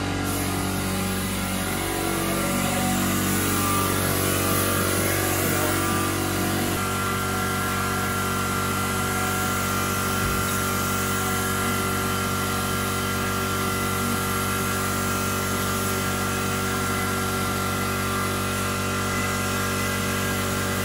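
Gravity-feed spray gun hissing as it sprays primer onto car body panels, over a steady mechanical drone. A high steady tone joins the drone about a third of the way in.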